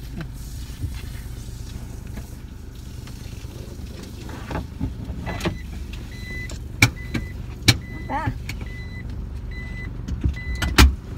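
Car engine idling, heard from inside the cabin as a steady low hum. In the second half a few sharp clicks and a string of short, high beeps on one pitch come over it.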